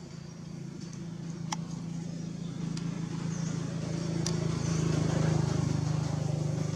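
A motor vehicle's engine running, its low steady hum growing louder to a peak about five seconds in and then easing off, like a vehicle passing. A few faint sharp ticks sound over it.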